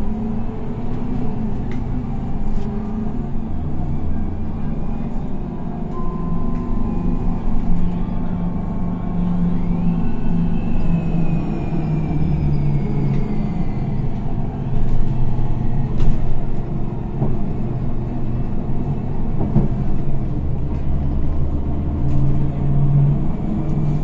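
Higer KLQ6129GQ2 city bus's diesel engine and Voith automatic transmission running under way, heard from inside the cabin, the low engine note shifting with load. A high whine slides down in pitch in the middle.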